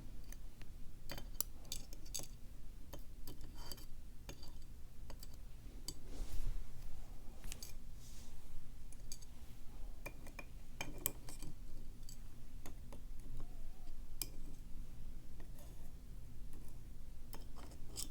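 Small pin-tumbler lock pins being sorted and set out by hand: light, scattered metallic clicks and ticks as the pins are picked up and put down.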